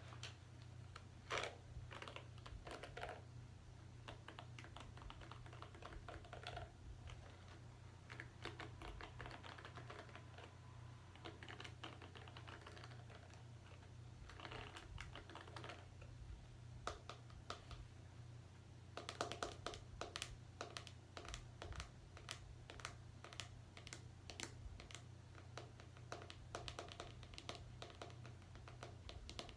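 Close-miked scratching in hair, coming in bursts of fine crackling clicks one to two seconds long with short pauses between them, over a low steady hum.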